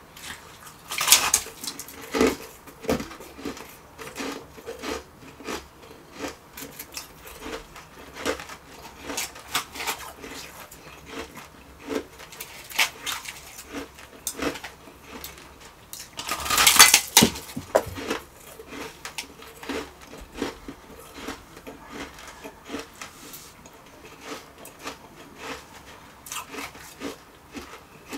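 Close-up mouth sounds of refrozen shaved ice being bitten and chewed: a steady run of short, crisp crunches, with two louder, longer crunching bites, one about a second in and one around sixteen to seventeen seconds in.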